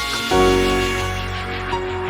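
Background music: sustained pitched notes over a deep bass that comes in strongly about a third of a second in.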